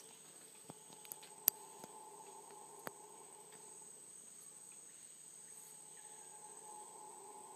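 Rainforest insects droning in a steady high-pitched whine, with a fainter, lower steady drone beneath it. A few small clicks come in the first three seconds, the sharpest about one and a half seconds in.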